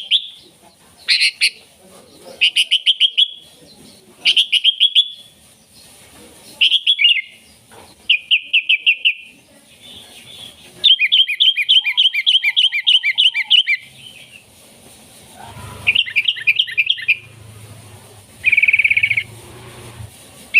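Sooty-headed bulbul (kutilang) singing: short bursts of rapid chattering notes repeated every second or two, with a longer run of quick notes about halfway through.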